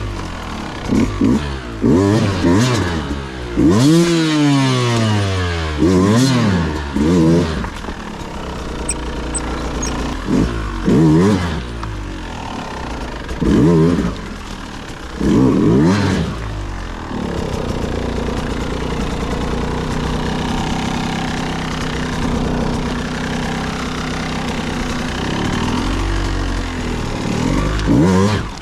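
Dirt bike engine revved in a string of short throttle blips, its pitch rising and falling with each one. About two-thirds of the way through it settles to a steady idle, then revs once more near the end.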